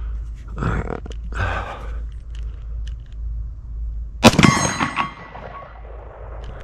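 A single shot from a Glock 20 Gen 5 10mm pistol firing a 155-grain Underwood load, about four seconds in. It is followed by a short metallic ring that fades within about a second, typical of a bullet striking a steel target.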